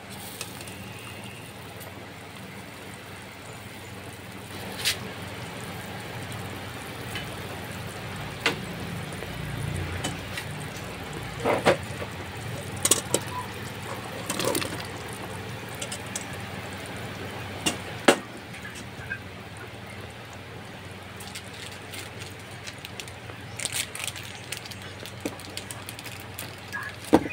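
Pot of soup simmering on a stove, a steady bubbling hiss, with scattered sharp metallic clinks of the pot lid being lifted and knocked against the stainless steel pot.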